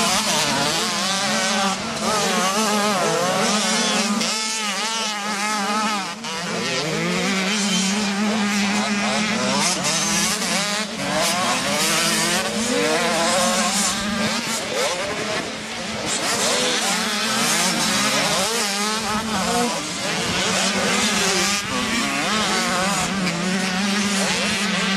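Motocross bikes racing on a dirt track, several engines overlapping as they rev up and down through the gears, their pitch rising and falling continually over a steadier engine drone.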